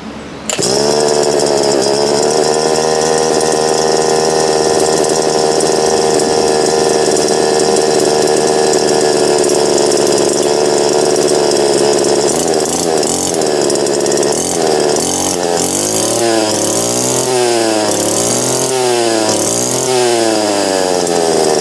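Brush cutter's small engine with its stock muffler catching about half a second in and idling steadily. From about twelve seconds in it is revved up and down over and over, about once a second.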